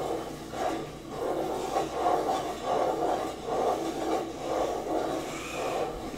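Wooden spoon stirring butter-sugar toffee mixture in a non-stick pot, scraping and sloshing in repeated strokes, about two to three a second.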